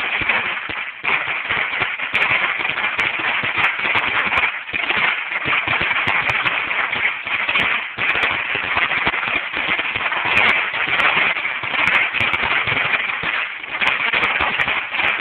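Dominator 16,000 firecracker strip going off in a continuous, rapid string of small bangs.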